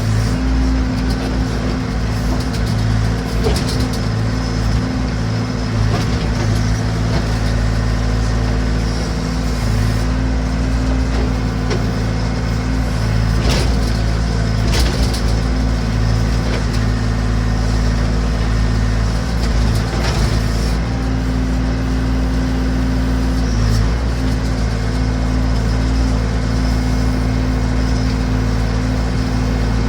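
Massey Ferguson BX 50 backhoe's engine running steadily, with a few sharp knocks, one a few seconds in and two more about halfway through.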